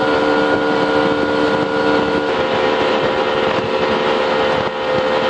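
Motorboat engine running at speed: a steady drone with a dense rushing noise. One lower tone in it drops out about two seconds in.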